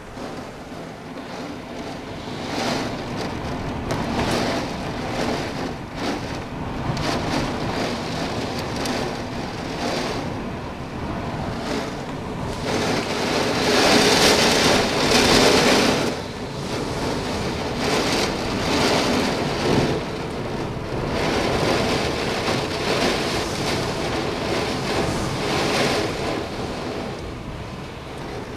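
Heavy rain and gusting wind of a severe thunderstorm, a steady rush that swells and falls in gusts, loudest about halfway through.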